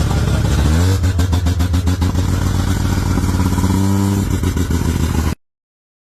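Performance car engine revving loud, rising in pitch about a second in and again near four seconds, then cut off abruptly a little over five seconds in.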